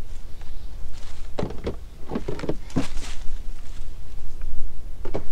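Wind buffeting the microphone as a steady low rumble, with a handful of short knocks and rustles from handling things at a box on the ground, grouped between about one and a half and three seconds in and once more near the end.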